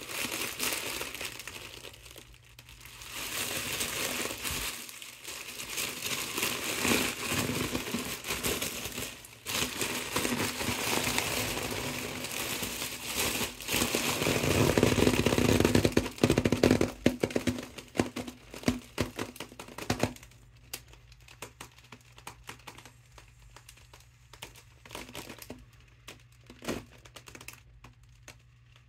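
Mylar foil balloon crinkling and crackling as hands press and fold it to squeeze the air out through a straw in its valve. The crinkling is dense and loudest about halfway through, then thins to scattered crackles for the last several seconds.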